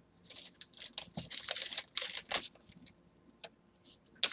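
Crinkling of a plastic wrapper being handled, an irregular crackle for about two seconds, followed by a few light clicks and one sharp click near the end.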